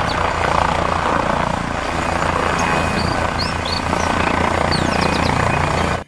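Air ambulance helicopter in flight: steady turbine noise over the fast, even beat of the rotor blades.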